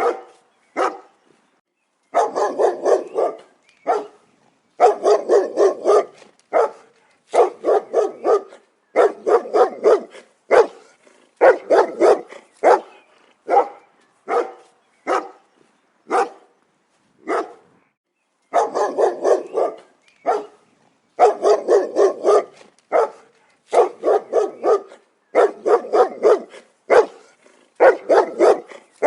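Dog barking in quick runs of several barks each, with short silent pauses between the runs.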